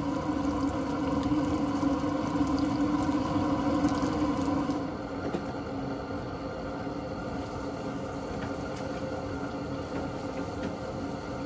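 Fish fillets deep-frying in the baskets of an outdoor propane fryer: hot oil bubbling and sizzling with a steady hum. It gets quieter about five seconds in.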